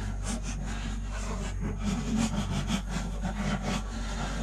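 Hand scrapers rasping in short, irregular strokes as old silicone gasket is scraped off the rim of a sailboat's built-in water tank opening, over a steady low hum.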